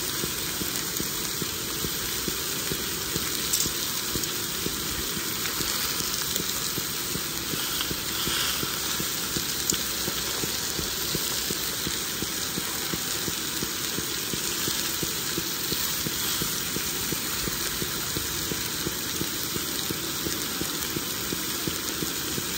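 Beef steaks sizzling steadily in a cast-iron skillet, with a few light clicks.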